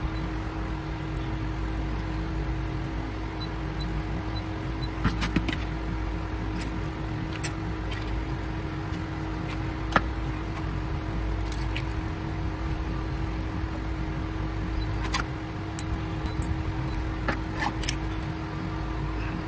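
Small sharp clicks and light metal clinks, about a dozen scattered through, from a soldering iron and metal tabs touching the tops of lithium-ion battery cells as the tabs are soldered on and handled. They sit over a steady low hum.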